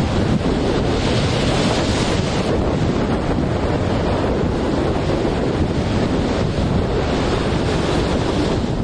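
Rough storm sea breaking and churning, with gale-force wind buffeting the microphone: a loud, steady rush with no let-up.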